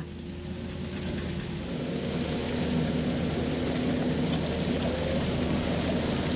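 Tractor running steadily while pulling a seed drill through mulched soil, a steady engine hum under a rushing noise that grows louder over the first two seconds.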